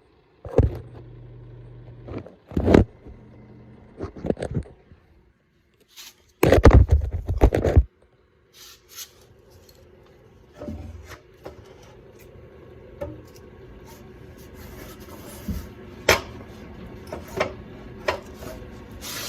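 Scattered knocks, clicks and scrapes of wood pieces being handled in a workshop, with one loud noisy stretch of about a second and a half a little past six seconds in.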